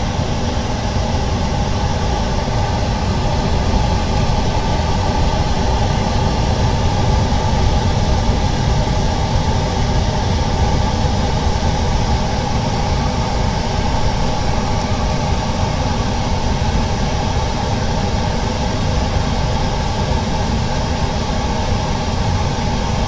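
Steady machine hum with several fixed tones over a low rumble, unchanging in level.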